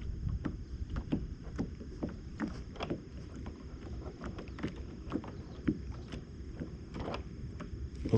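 Water lapping against a kayak's hull in small, irregular knocks and slaps, over a low rumble of wind on the microphone.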